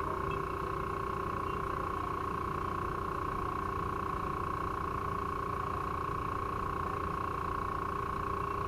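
Fire apparatus electronic siren held on one steady, unchanging tone, over low engine and traffic rumble.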